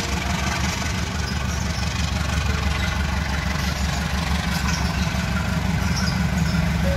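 Diesel locomotive engine running with a steady low rumble, growing slowly louder as the train approaches.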